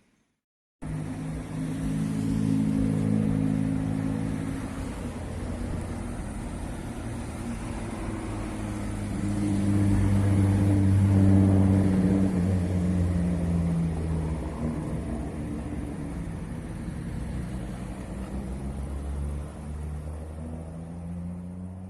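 Car engine running at low revs with a low, steady note. It swells to its loudest about halfway through, the pitch shifting a little, then eases off and fades near the end.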